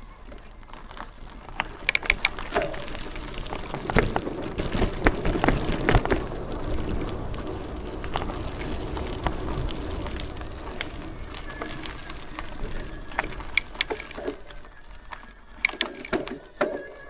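Bicycle tyres crunching over coarse gravel on a steep climb, with sharp clicks and knocks from stones and the bike. The crunching starts about two seconds in and is loudest in the middle.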